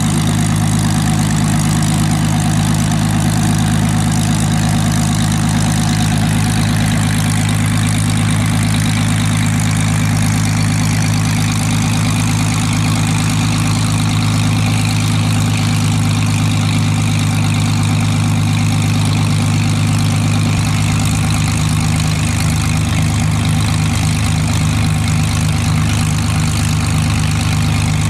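A Hawker Hurricane Mk.I's Rolls-Royce Merlin III V12 aero engine idling on the ground, with a steady, even beat. Its low note changes slightly about twenty seconds in.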